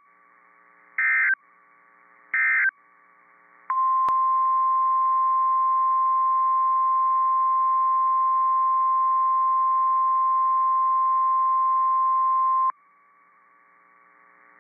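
NOAA Weather Radio EAS tones: three short buzzy SAME digital data bursts a little over a second apart, then the steady 1050 Hz weather-radio alert tone held for about nine seconds before it cuts off suddenly.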